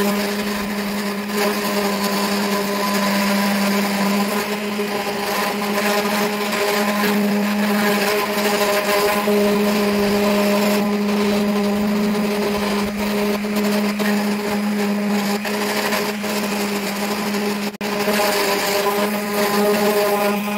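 Handheld orbital sander running steadily against a car door, its motor humming over the hiss of the pad grinding through the paint toward bare metal. The sound dips briefly a few seconds before the end.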